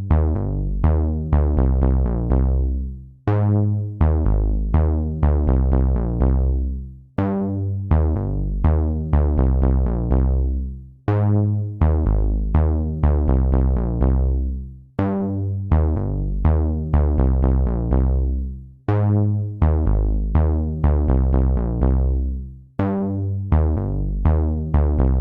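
Background electronic music: quick synthesizer notes over a steady beat with heavy bass, in a phrase that repeats about every four seconds.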